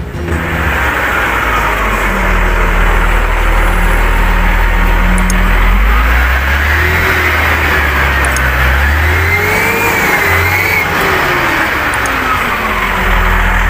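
Komatsu GD535-5 motor grader's diesel engine running, with a steady low drone. Around the middle the engine note shifts up and back down, and a higher whine rises and falls with it.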